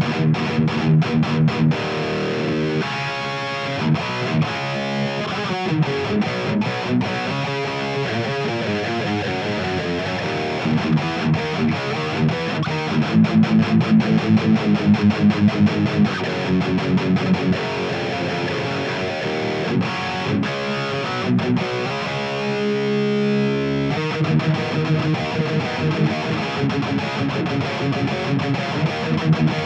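High-gain distorted electric guitar played through the 5153 amp model of the STL Tone Hub amp simulator plugin: heavy metal riffs and chords, with a run of fast, even palm-muted chugs about halfway through.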